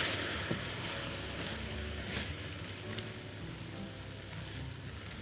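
Shawarma meat sizzling as it fries in a pan and is stirred, with a few faint utensil clicks against the pan. The sizzle is strongest at the start and settles to a steadier, softer hiss.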